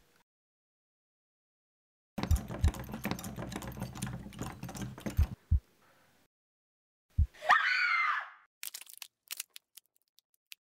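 Horror-film sound effects: after a silent start, about three seconds of crackling, distorted noise over a low rumble, then a few low thumps and a short shriek that rises and bends in pitch, followed by scattered sharp clicks.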